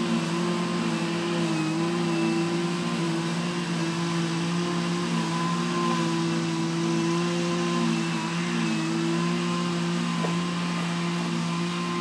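Federal Signal Thunderbolt 1000T outdoor warning siren sounding its steady alert tone for a test, the pitch holding nearly level with a slight waver.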